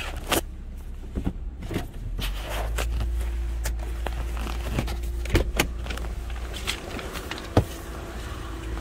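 A scattering of sharp clicks and knocks as the cabin and door of a Lexus RC300 are handled, over a steady low hum that grows louder about two seconds in.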